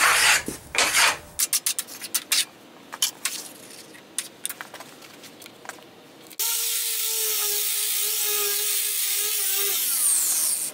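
Steel filings being wiped and scraped across a steel workbench with a rag: a few quick scraping strokes, then scattered small clicks and rustles. About six seconds in, a loud steady hiss with a humming tone starts abruptly and runs on.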